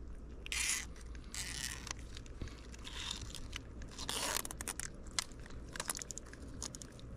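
Cable ties being threaded and pulled tight around a giant mud crab's claw: three short raspy zips or scrapes, about half a second, a second and a half and four seconds in, among small clicks of handling.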